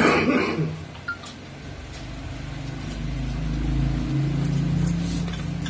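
A short loud noise right at the start, then a motor vehicle's engine rumble that swells and then eases, as of a vehicle passing by. Faint clinks of dishes sit under it.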